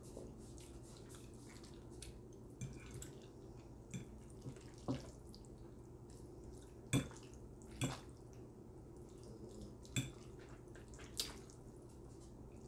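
A metal fork clinking against a glass baking dish while twirling spaghetti, about seven short sharp clicks spread out, the loudest a few seconds past the middle, over quiet close-up wet eating sounds.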